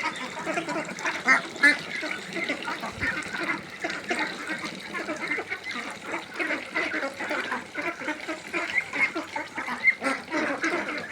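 A flock of young domestic ducks, about seven weeks old, calling all together: many short overlapping calls with no pause.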